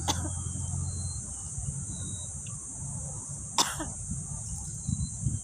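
Steady high-pitched insect drone with a few short bird chirps. Two brief sharp sounds cut across it, one right at the start and a louder one about three and a half seconds in.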